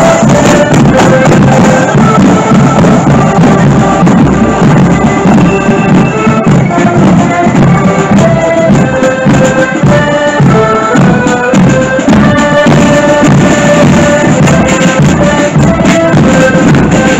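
Marching accordion band playing a loud march tune, the accordions carrying the melody over a steady beat of drums.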